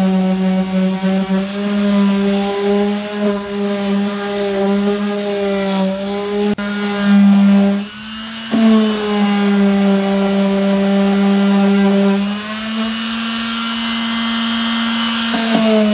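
Cordless random orbital sander running against a plywood edge, a steady motor hum with the grit scraping on the wood. Its hum dips briefly about eight seconds in, then picks up again.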